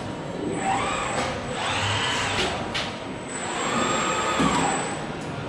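Industrial robot arm's servo motors whining as it moves, the pitch rising and falling in three arcs as the arm speeds up and slows down, over a steady factory hum.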